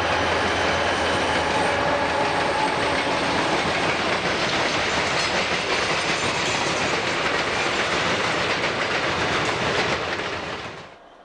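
Freight train cars rolling past with steady wheel-on-rail noise; the sound drops away sharply near the end.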